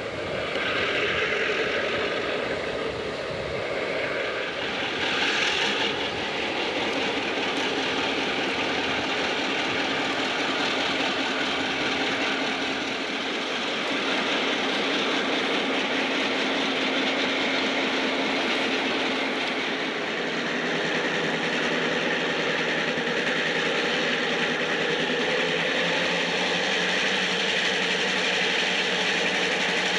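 Passenger train hauled by EMD F9 diesel locomotives running past at speed, with steady engine drone and wheel-on-rail noise.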